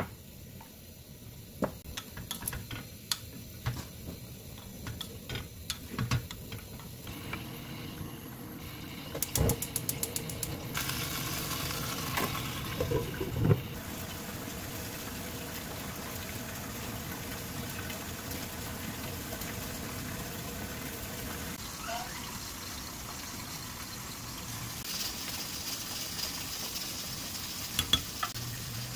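Kimchi heating in an earthenware pot on a gas stove, with light clicks and knocks of spoons and utensils. A quick run of clicks comes about ten seconds in, then a steady sizzling hiss sets in.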